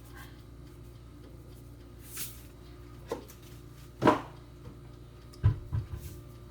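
A few scattered knocks and clatters of kitchen utensils and cookware, the loudest a sharp knock with a short ring about four seconds in, over a steady low hum.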